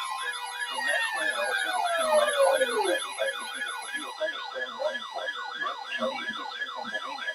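Several electronic emergency-vehicle sirens yelping over one another in a fast rising-and-falling cycle, with one siren sliding steadily down in pitch between about one and three seconds in.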